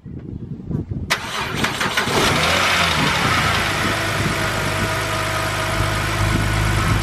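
BMW N52 straight-six engine cranking on the starter and catching about a second in, then settling into a steady idle. It is the first start on fresh oil after an oil and filter change with engine flush.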